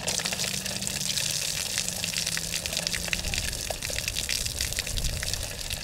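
Water from an outdoor tap pouring in a steady stream and splashing onto wet sand.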